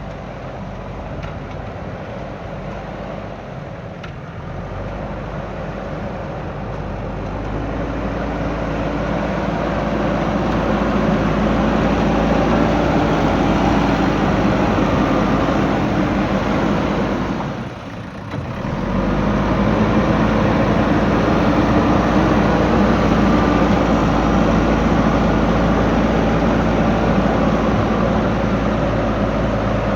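Diesel engine of a JCB backhoe loader running while it works, growing louder over the first ten seconds. It drops away briefly a little past halfway, then runs on steady.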